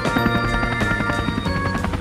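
Background music: an upbeat tune with pitched synth notes over a steady drum beat.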